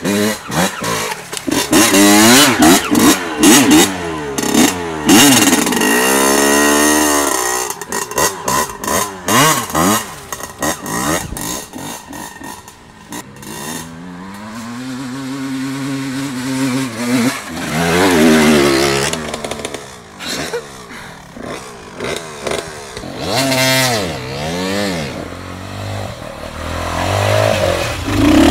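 Dirt bike engine revving up and down in quick bursts as it is ridden, with the pitch rising and falling over and over. It drops away briefly about halfway through, then comes back with longer, slower climbs and falls in pitch.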